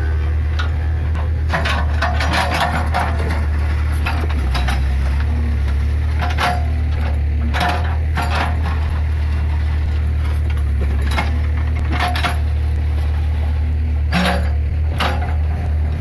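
Case 580 Super L backhoe loader's diesel engine running steadily while its bucket scrapes and spreads loose laterite soil and stones, with irregular clanks and clinks of stone and metal throughout.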